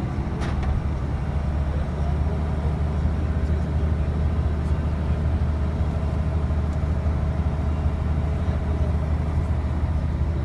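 Steady low engine rumble with a faint steady whine above it.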